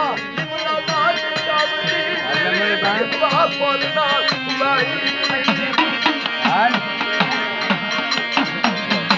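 Indian folk music: a wavering melody over held drone tones, with hand-drum strokes keeping the beat, more evenly spaced near the end.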